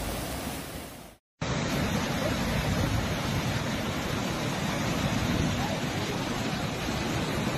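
Steady rush of floodwater. It fades out to a brief silence about a second in, then a louder, steady rush of a swollen river in flood takes over.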